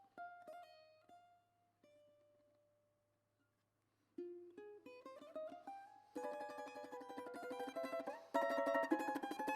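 Background music on a plucked string instrument: a few single ringing notes, a short pause, then a rising run of notes leading into fuller, louder strummed chords.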